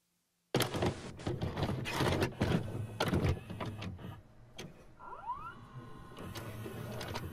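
Videocassette recorder mechanism loading and starting a tape: a rapid run of mechanical clicks and clunks, then a motor whirring with a rising whine about five seconds in, and a few more clicks near the end.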